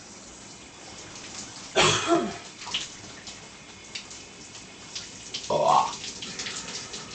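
Two belly burps over the steady hiss of a running shower: a long, loud one about two seconds in that drops in pitch, then a shorter one near the end, both much louder than the water.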